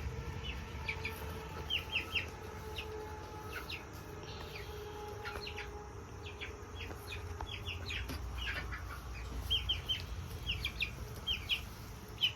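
Chickens clucking and calling, with many short high peeps scattered throughout, busiest in the second half.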